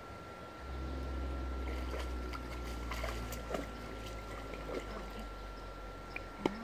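Shallow creek water trickling and sloshing as hands work in it among stones, with a few light knocks and a sharper click near the end, over a steady low rumble.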